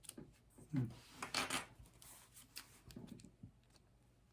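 Light rubbing and clicking as a mechanical pencil is handled close to the microphone, with a couple of brief low vocal murmurs.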